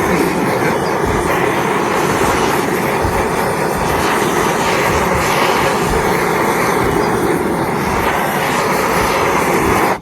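Hand-held work torch burning with a steady, loud roar as it sears raw fish, cutting off abruptly at the very end.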